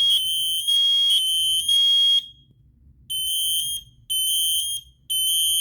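Smoke alarm sounding the temporal-three evacuation pattern: three loud, high-pitched beeps, a pause of about a second, then three more.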